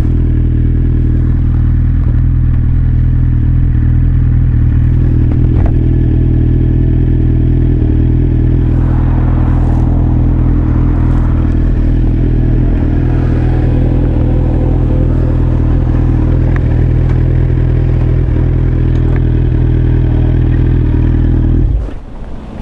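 Kawasaki Z1000 inline-four with an Arrow aftermarket exhaust idling steadily, stopping abruptly near the end.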